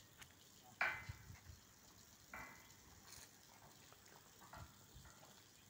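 Two faint metal clanks, one about a second in and one about two and a half seconds in, each with a brief ring, over a faint crackling background.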